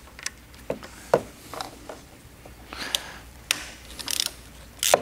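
Hand ratchet clicking in short, irregular bursts while backing out the 8 mm bolts that hold the head on a Kranzle pressure washer's brass plunger pump, with light metal taps among the clicks and a quick run of clicks near the end.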